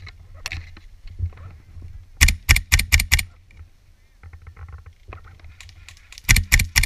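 Hephaestus T21 airsoft rifle firing a quick string of about five sharp shots, then three or four more near the end, muffled by a sealed waterproof camera housing.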